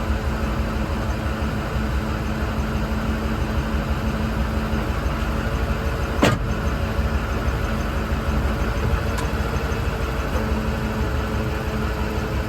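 Ford truck running with a steady low rumble and hum, and one sharp click about halfway through.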